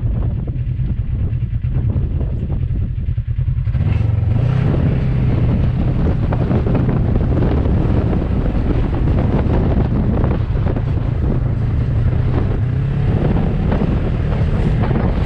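A side-by-side UTV's 1000cc engine running while being driven, with wind on the microphone; the sound grows fuller and busier about four seconds in.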